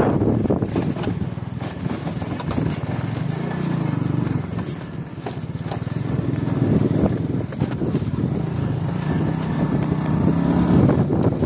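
70cc motorcycle engine running as the bike rides along, its level rising and falling with the throttle. One sharp knock about five seconds in.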